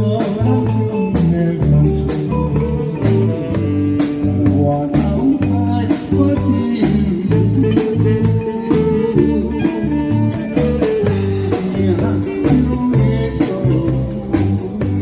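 A band playing a song: guitar over a bass line and a steady drum-kit beat.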